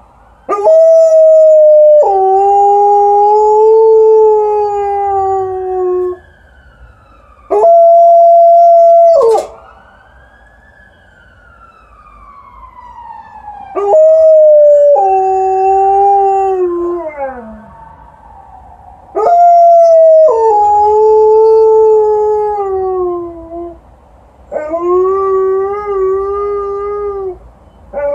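Alaskan Malamute howling: five long howls of a few seconds each, several sliding down in pitch at the end, answering a passing ambulance siren that wails faintly in the gaps.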